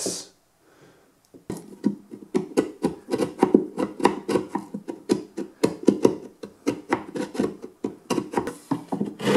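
Chisel scraping old glazing putty out of a timber window rebate in short, quick push-and-pull strokes, about three or four a second, starting about a second and a half in.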